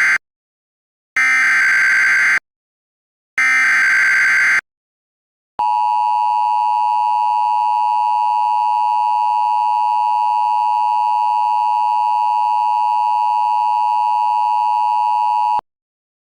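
Emergency Alert System tones. First the end of one SAME header data burst, then two more, each about a second long with a second's gap between them. Then the two-tone EAS attention signal is held steady for about ten seconds and cuts off sharply.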